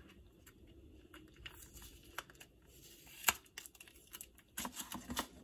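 Faint crinkling and tearing of plastic packaging as a paper pad is unwrapped, with scattered small clicks and one sharper click about three seconds in.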